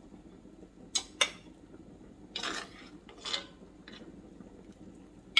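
Metal slotted spoon clinking and scraping against a cast iron Dutch oven as vegetables are lifted out of the broth: two sharp clinks about a second in, two short scrapes in the middle, and another clink at the end.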